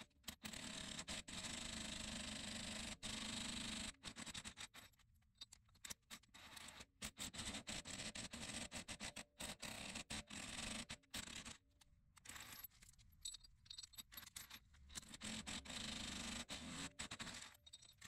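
Faint, intermittent scraping and handling of metal hardware on a wheel hub as a new wheel stud is drawn in and nuts are worked by hand, over low background hiss that keeps cutting in and out.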